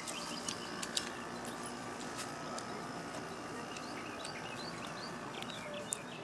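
A bird chirping in quick runs of short notes over steady outdoor background noise, with a few sharp clicks about a second in and near the end.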